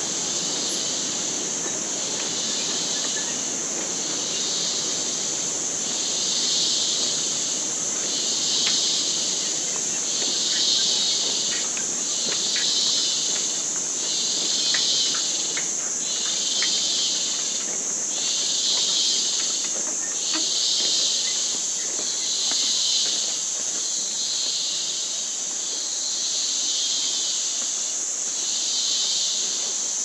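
Rainforest insects calling: a steady high-pitched chorus, with a second insect's call swelling and fading about every two seconds.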